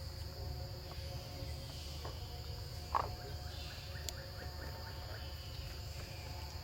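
Insects, crickets or cicadas, keeping up a steady high-pitched drone, over a low background rumble. About three seconds in there is a brief sharper sound, followed by a quick run of faint short chirps.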